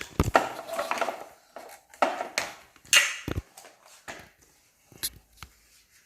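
Plastic toy cleaning-trolley parts being handled, making scattered clicks, knocks and brief rustles.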